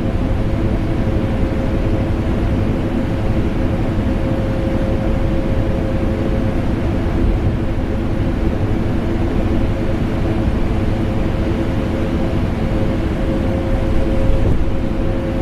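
Vacuum cleaner motor running steadily, blended with air-conditioner noise: a constant deep drone with a steady hum tone and no changes.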